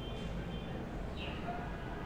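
Room tone: a steady low hum and background noise, with one faint, brief high chirp about a second in.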